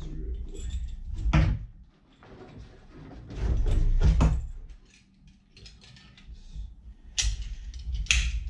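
Handling noise from a scuba BCD being worked on a wooden tabletop: nylon fabric and webbing rustle and scrape, with several sharp clicks and knocks of plastic buckles and clips. The loudest clicks come near the end.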